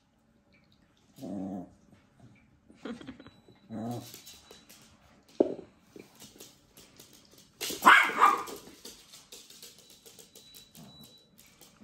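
Yorkshire terrier barking several times in short yaps during play, the loudest bark about eight seconds in.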